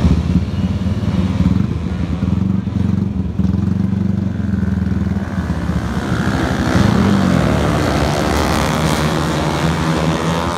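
A pack of flat-track racing motorcycles running hard together, several engines overlapping, louder and brighter about two-thirds of the way in as the bikes sweep through the nearby turn.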